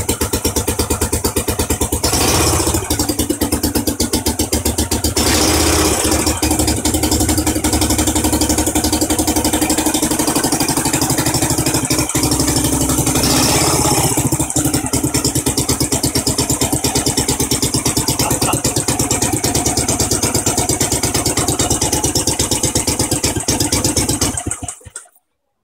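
1964 Heinkel Tourist 103 A2 scooter's single-cylinder four-stroke engine running after a full restoration, ticking over with an even firing beat. It picks up briefly a few times, about two, five and thirteen seconds in, then cuts out near the end.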